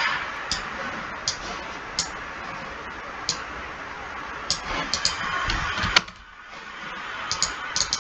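Computer mouse clicks, a dozen or so short, irregular clicks over a steady background hiss, a few in quick runs, the sharpest about six seconds in.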